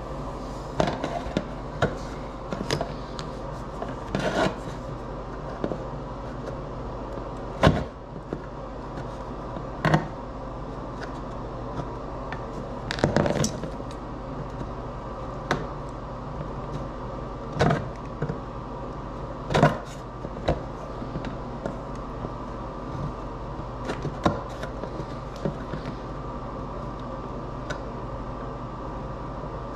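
Plastic solar post light cap and panel being handled and set down on a tile floor: scattered clicks and knocks a second or a few seconds apart, over a steady low hum.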